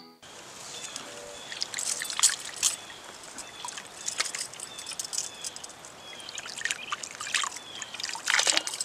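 Hands washing in shallow water: irregular splashes and drips as water is scooped, rubbed between the palms and runs off the fingers, with a louder flurry of splashing near the end.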